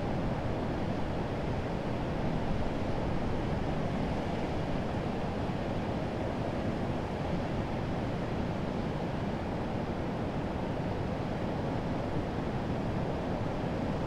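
Urriðafoss waterfall on the Þjórsá river: a deep, steady rush of white water pouring over broad rapids, unchanging throughout.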